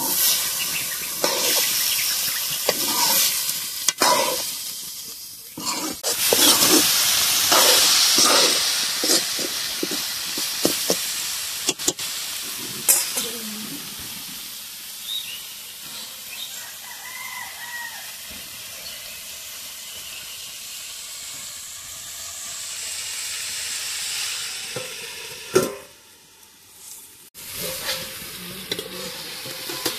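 Metal ladle stirring and scraping pieces of goat skin frying in masala in an aluminium kadai, over a steady sizzle. The stirring stops about halfway through and the sizzling carries on more quietly, with a single sharp knock near the end.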